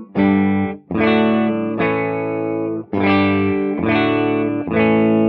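Electric guitar through a valve amplifier strumming a series of ringing chords, about one a second. The amp's first preamp stage runs a small 0.68 µF cathode bypass capacitor, which gives an upper-mid boost rather than boosting the full range.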